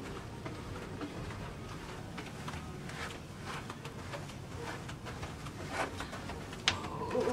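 Faint low rumble of a cruise ship's interior, with scattered soft knocks and rustles from walking down a carpeted corridor and handling the camera, and one sharper click near the end.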